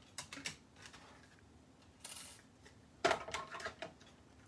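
Clear plastic cutting plates of a die-cutting machine clicking and knocking as they are handled and stacked, with a short sliding hiss about two seconds in and a quick cluster of clicks about three seconds in.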